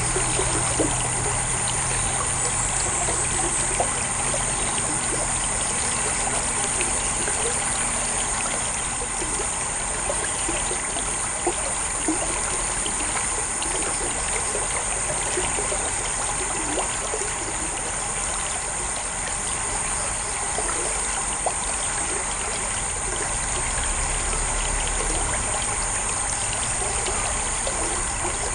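Steady trickling, running water flowing at a culvert.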